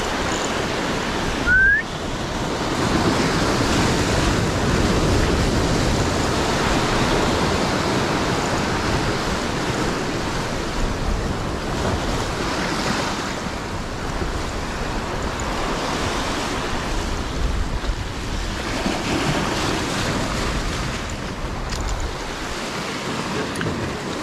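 Sea surf breaking and washing over shore rocks in a steady rush. A brief, loud rising squeak about one and a half seconds in.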